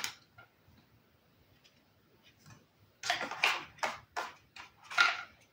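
Tarot cards being handled: starting about three seconds in, a run of short papery swishes and taps as a card is slid off the top of the deck and laid aside.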